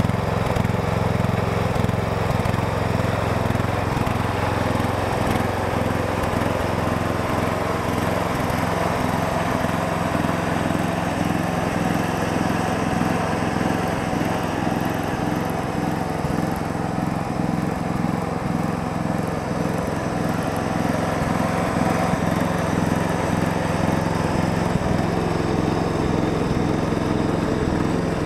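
Castelgarden lawn tractor's small engine running steadily at an even speed.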